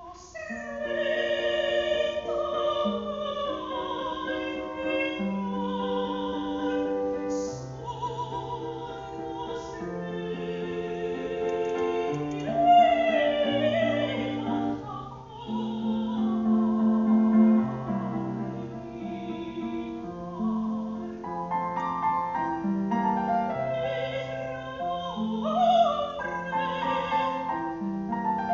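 Operatic soprano singing a bel canto aria with piano accompaniment.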